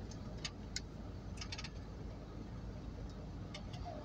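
Steady low rumble in a van's cab, with a few light clicks now and then.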